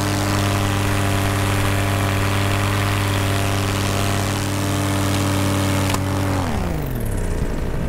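Paramotor's two-stroke engine and propeller running steadily at full climb power. About six seconds in there is a brief crack as the smoke injector goes through the propeller, and the engine pitch then falls away as power comes off.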